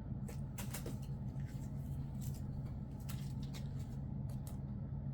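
Soft rustles and light taps from comic books being handled and flipped through, a dozen or so short sounds spread irregularly, over a steady low hum.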